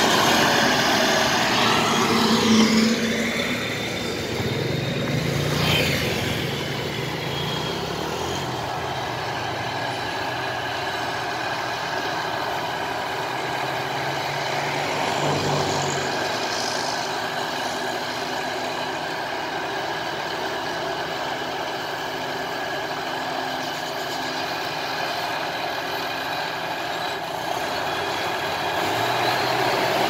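Homemade tracked rice harvester's engine running steadily under working load, its pitch shifting over the first few seconds and then holding even.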